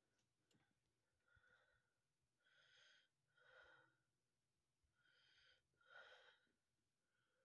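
Near silence, with a few faint, short hissing sounds spread through it.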